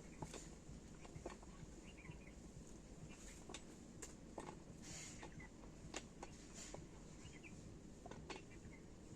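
Near silence: faint outdoor ambience with scattered light clicks and a few faint bird chirps.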